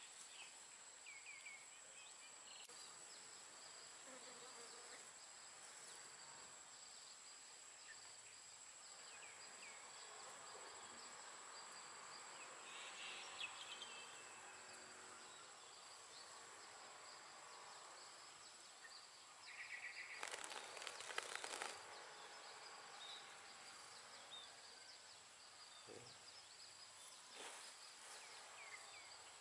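Faint outdoor field ambience dominated by a steady, high-pitched drone of insects. About two-thirds of the way in comes a brief louder burst of rustling noise.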